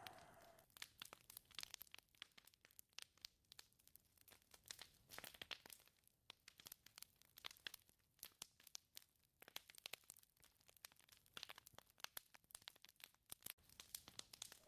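A gust of wind fades out within the first second, leaving faint, irregular crackling and ticking clicks.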